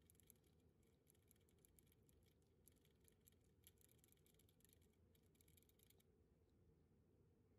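Near silence with faint, rapid, irregular clicking that stops about six seconds in: a rabbit licking at the metal spout of its water bottle.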